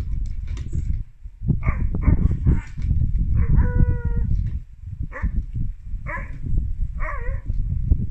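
Siberian husky puppy giving a string of short 'woo woo' talking howls, about seven calls, one of them held longer as a steady note about halfway through, as a play invitation to another husky. A heavy low rumble runs underneath.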